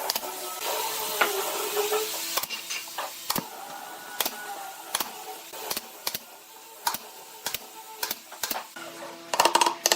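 A series of sharp taps or knocks, roughly one every half second to second, over faint background music, with a hissing rasp in the first two seconds.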